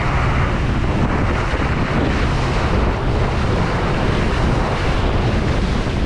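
Rigid inflatable boat running fast over the sea: a loud, steady rush of water and spray along the hull, with heavy wind buffeting on the microphone.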